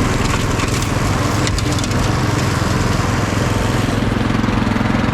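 Small petrol engines running steadily: a garden tractor towing a converted push-mower deck during a mowing test. A few brief crackles come about one and a half seconds in.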